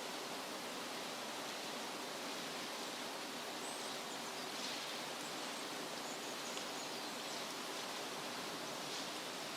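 Forest ambience: a steady rushing hiss of outdoor natural noise, with a few faint, short, high chirps from birds.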